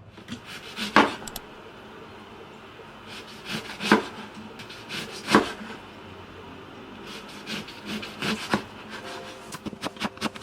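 Kitchen preparation sounds: a few sharp knocks on a hard surface, about four spread out, with rubbing and handling noise between them.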